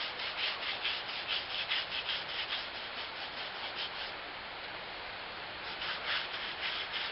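Soapy water being scrubbed over a flat truck tire to find the leak: quick back-and-forth rubbing strokes, about four a second, that stop about four seconds in and start again nearly two seconds later.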